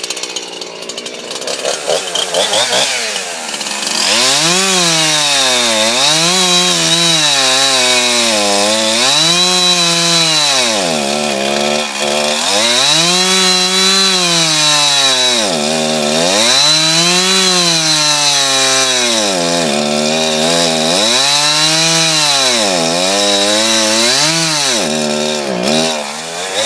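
A 59cc two-stroke chainsaw running loud and cutting a log, its engine speed rising and falling over and over.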